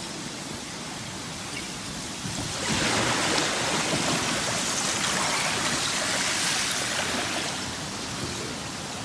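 River running fast with broken ice floes and slush during the spring ice drift: a steady rushing hiss of water and ice that swells louder about two and a half seconds in and eases again near the end.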